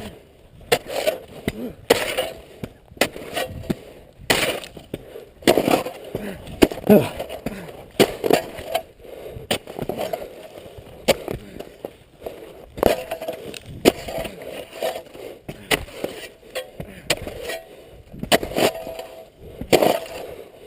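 A shovel blade chopping and striking into the hard-packed snow of a snow fort wall, in irregular repeated blows about one or two a second.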